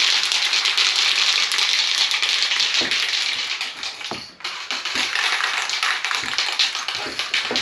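Aerosol spray can of plastic adhesion promoter hissing in long spray passes, with a short break about four seconds in.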